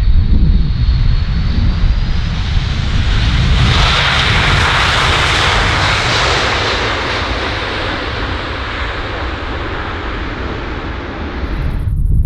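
Jet airliner coming in to land and passing close by: the engine noise swells to a peak about four seconds in and then fades, over a steady low wind rumble on the microphone. The sound cuts off abruptly near the end.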